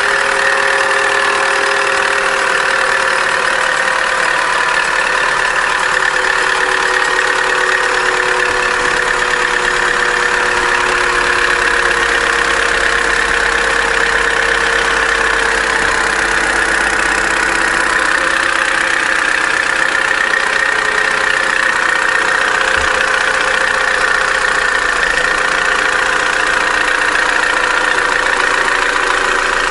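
Opel A14XER 1.4-litre four-cylinder petrol engine idling cold just after start-up, its idle speed settling slowly lower over the first dozen seconds. It runs with a knocking noise, the noisy running when cold that it was brought in for, which the mechanic suspects comes from insufficient oil pressure.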